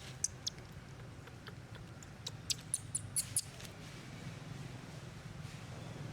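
Short, high-pitched squeaks from a baby monkey: two near the start, then a quick run of about six between two and three and a half seconds in.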